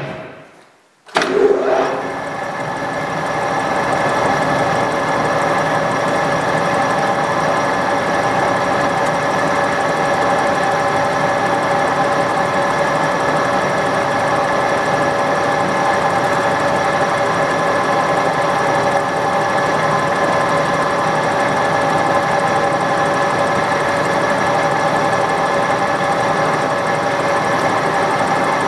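Metal lathe switched on about a second in, spinning its four-jaw chuck up to speed and then running steadily with a whine of several steady tones.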